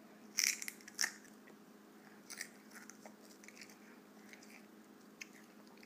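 A toddler biting into a potato chip and chewing it: two sharp crunches about half a second and a second in, then softer, scattered crunches as he chews.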